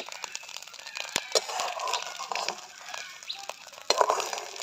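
Metal spatula scraping scrambled egg across an iron wok and onto a ceramic plate, with a few sharp knocks of metal on the pan, the loudest near the end. Chickens clucking in the background.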